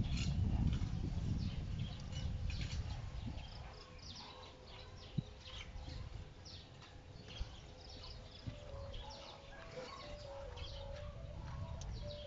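Hands working a car fog-lamp bulb and its wiring connector: low rustling handling noise for the first couple of seconds, then a few faint clicks. Birds chirp in the background throughout.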